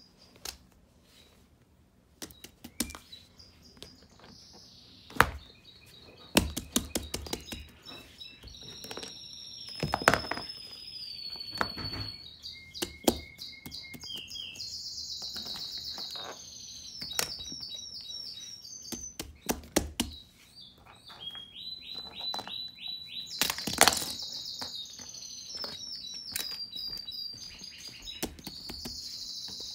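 A bird chirps and trills in high whistled phrases from a few seconds in, over a run of knocks and clatters as toys are set down on a wooden table. The loudest knocks come near the start, about a third of the way in, and late on.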